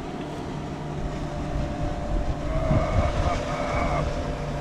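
Steady low motor hum under a rough, rumbling noise.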